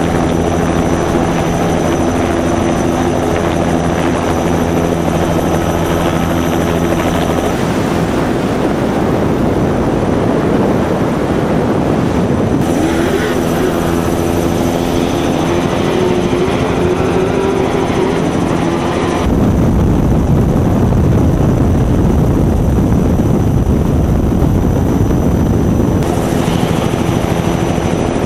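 Helicopter rotor and engine noise, mixed with a trophy truck's engine running hard and rising in pitch around the middle; the sound changes abruptly several times.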